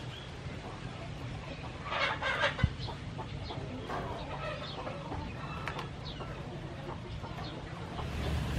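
Chickens clucking, with one sharp knock about two and a half seconds in.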